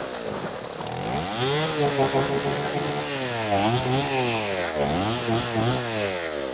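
Chainsaw engine revving up and down with the throttle, its pitch rising and falling about three times.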